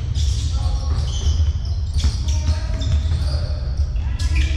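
Basketball game sounds in a hall: a ball bouncing on the court several times, with short high squeaks and voices calling out over a steady low rumble.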